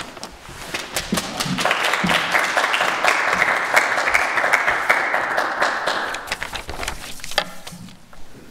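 Audience applauding, swelling from about a second in and fading out near the end.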